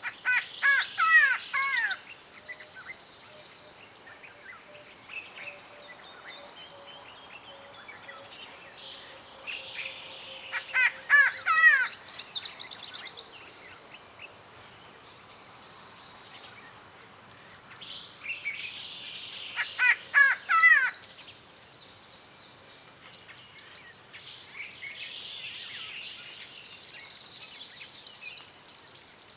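Yellow-bellied greenbul calling in three loud bursts about ten seconds apart, each a rapid run of down-slurred notes. Fainter high chirping and trilling from other birds or insects continues in between.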